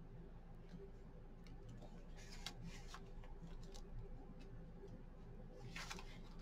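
Paper pages of a handmade journal rustling as they are turned and lifted by hand, with short crinkles about two seconds in and again near the end, over a faint steady hum.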